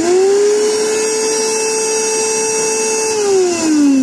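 Silver Crest blender's motor running with no jar fitted, spinning up quickly to a steady high whine at a middle speed setting, then winding down with a steadily falling pitch about three seconds in as it is switched off. This is a test run of the returned unit's motor.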